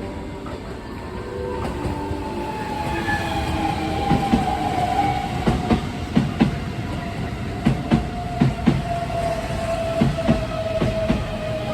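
Keihan 3000 series electric train pulling in: its motor whine falls steadily in pitch as it slows, while the wheels clack over rail joints, often in quick pairs, from about four seconds in.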